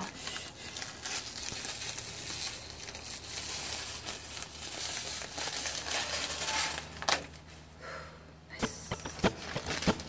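Clear plastic protective film being peeled off a tempered-glass PC case panel and crumpled, a continuous crinkling and rustling that eases about seven seconds in, then a few sharp crackles near the end.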